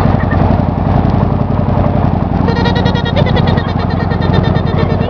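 A boat's engine running steadily with a fast, low, pulsing rumble. About halfway through, a higher wavering tone rises over it.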